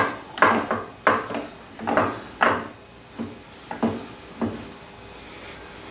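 Metal parts on the tool head of a Douglas metal shaper being knocked and worked by hand: a run of irregular sharp metallic clunks and knocks, about ten of them, stopping about four and a half seconds in.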